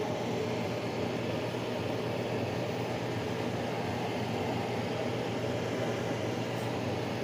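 A steady mechanical hum of a running appliance motor, a low drone under an even hiss that does not change.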